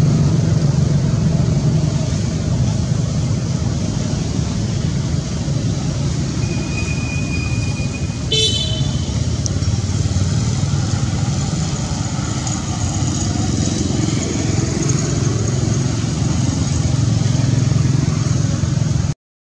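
Steady low rumble of motor vehicle traffic outdoors, with a short high-pitched toot about eight seconds in. The sound cuts off suddenly near the end.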